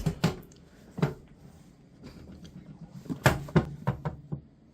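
Kitchen clatter: several sharp knocks and clunks as the hot pan of freshly baked biscuits is handled out of the oven, with a quick cluster of knocks near the end.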